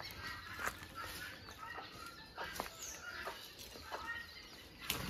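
Chickens clucking faintly now and then, in short scattered calls.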